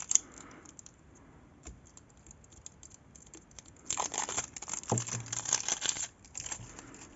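Thin plastic wrapping on a gel nail polish bottle crinkling as it is handled and peeled. A few light clicks come first, then a couple of seconds of dense crinkling about halfway through.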